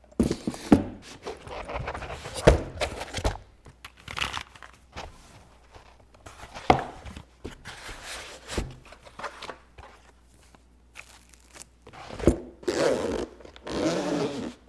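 Hands working with a mechanical keyboard: irregular soft knocks and clicks, with scraping and rustling between them.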